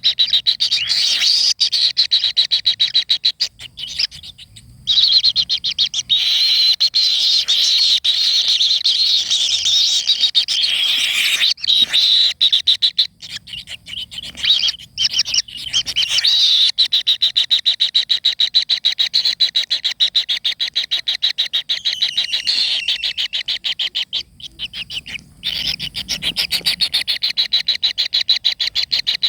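A bird's rapid, high-pitched rattling chatter, many even ticks a second, going on almost without pause and breaking off briefly three times.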